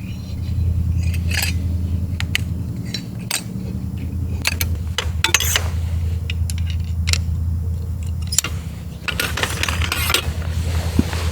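Scattered metallic clinks and knocks of gear or cookware being handled, over a steady low hum, with a denser burst of rustling handling about nine seconds in.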